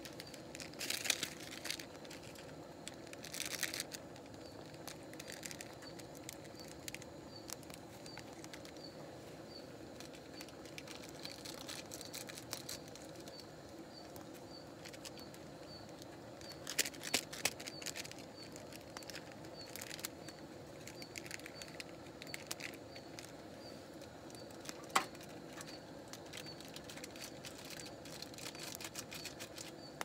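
Small plastic food packet crinkling as it is handled, in a few short bouts, with one sharp click about twenty-five seconds in.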